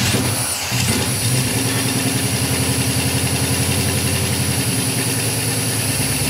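Freshly rebuilt Pontiac 400 V8 with FiTech throttle-body fuel injection idling steadily with an even low pulse, moments after its first start. It runs well right off the bat.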